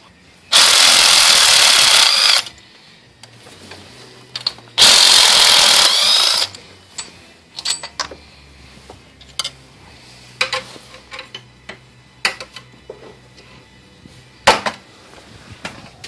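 A power tool runs in two bursts of about two seconds each, backing out the 10 mm upper intake manifold bolts on a GM 3.1/3.4 V6. Scattered light clicks and taps of tool and bolt handling follow.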